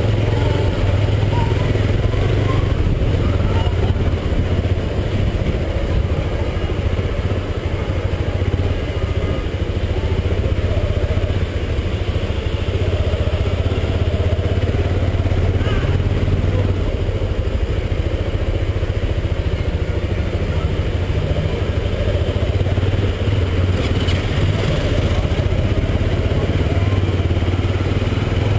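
Honda CBX 250 Twister's single-cylinder engine running steadily while riding, heard from the pillion seat with wind and road noise over the helmet microphone.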